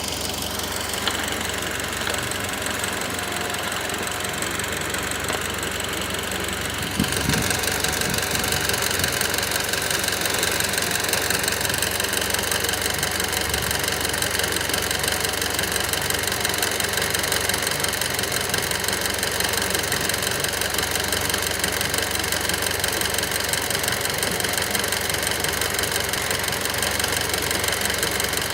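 Mitsubishi Lancer Evolution X's 4B11T turbocharged four-cylinder engine idling with an abnormal knocking noise. It gets louder and brighter about seven seconds in, then holds steady.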